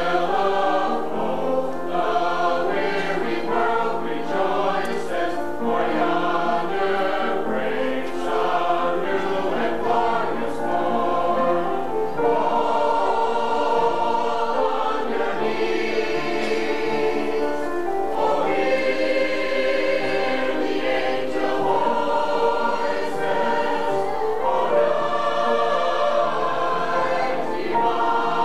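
Mixed choir of men's and women's voices singing together, a continuous sung passage with phrases swelling and easing.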